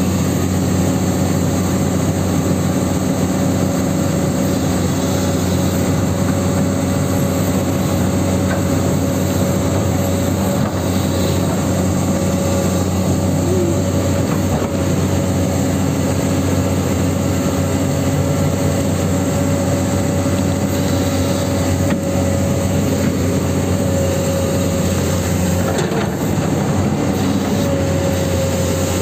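Huina 1594 RC excavator's electric motors running with a steady mechanical hum, its pitch shifting slightly as the machine works.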